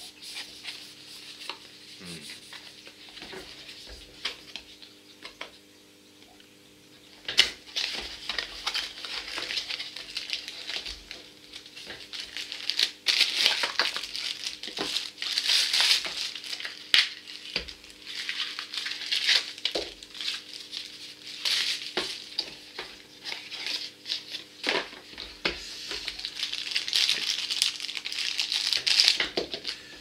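Clear plastic packaging bag crinkling and a cardboard box and plastic parts being handled, with many light clicks and taps. Handling is quieter for the first few seconds, then the crinkling runs on almost continuously from about seven seconds in, over a faint steady hum.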